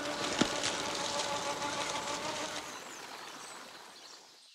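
Motor and gear drivetrain of a 1/10-scale Traxxas TRX-4 RC crawler with a Hobbywing AXE brushless motor, whining steadily under a light crawl, with a sharp click about half a second in. The sound fades away over the second half.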